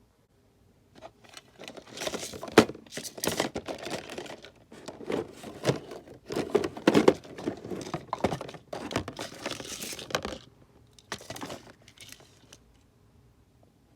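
Hands crinkling and rustling plastic in irregular bursts for about ten seconds, with a shorter burst near the end.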